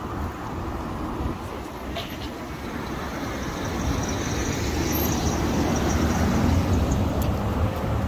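Street traffic noise with a vehicle driving past, its engine and tyre noise growing louder over the middle few seconds.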